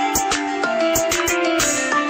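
Background music: a melody of stepping notes over a steady beat.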